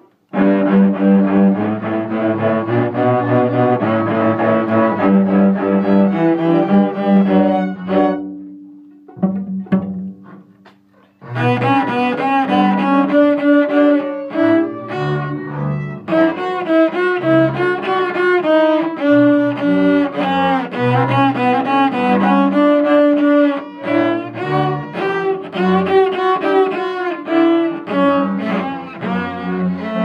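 Cello played with a bow, a line of sustained notes. The playing breaks off after about eight seconds and resumes a few seconds later.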